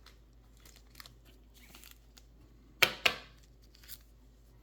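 Trading card and plastic card sleeves being handled: light rustles and small clicks, then two sharp, loud plastic rustles about a quarter of a second apart, nearly three seconds in.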